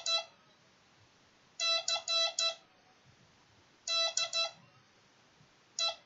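MFJ-557 code practice oscillator beeping Morse code keyed by hand on its straight key: three quick groups of dots and dashes at one steady pitch, decoded as letters, then a single short beep near the end.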